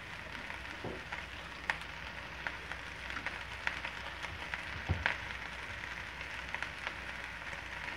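Sliced shallots, garlic and onion frying in oil in a wok, a steady light sizzle with scattered small clicks and a soft knock about five seconds in; the onions are already fairly dry as the chillies, lemongrass, galangal and bay leaves are added.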